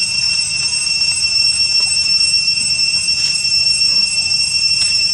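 Steady, high-pitched drone of cicadas, one unbroken whine, with a few faint ticks.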